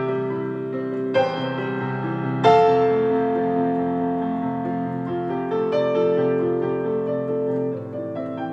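Slow, gentle piano music. Chords are struck about a second in and again at about two and a half seconds, each left to ring and fade slowly.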